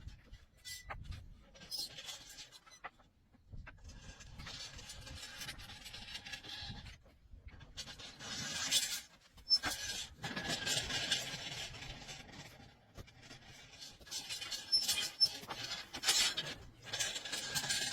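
Irregular bouts of rough scraping and rubbing, each a second or two long, with short pauses and a few sharp clicks between them.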